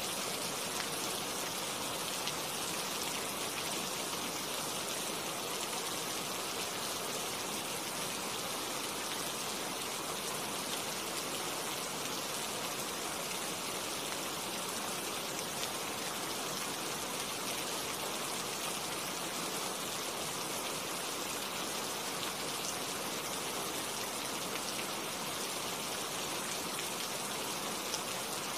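Steady rain falling on tree leaves: an even hiss with scattered small drop ticks.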